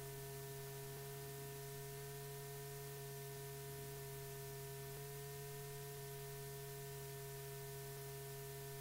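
Steady electrical hum with several unchanging tones over a light hiss: the background noise of an old film soundtrack, with no other sound.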